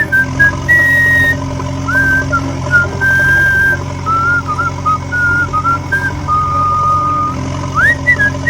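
An engine running steadily, with a whistled tune of short, gliding notes over it.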